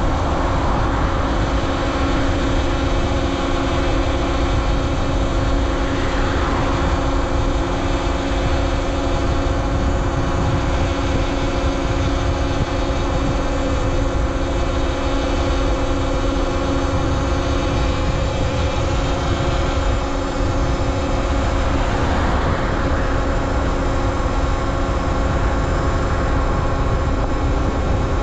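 Talaria Sting R MX4 electric dirt bike riding along, its electric motor giving a steady whine at one pitch, over a heavy rumble of wind on the microphone.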